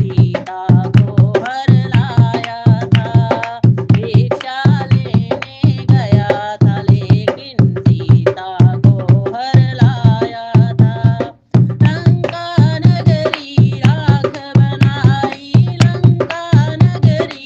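Hindi devotional song (bhajan): a voice singing a melody over tabla and drum, the low drum beat falling about twice a second. About eleven and a half seconds in, the music drops out for an instant before resuming.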